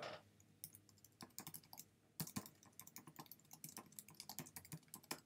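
Faint computer-keyboard typing: quick runs of keystrokes, with a short break about two seconds in.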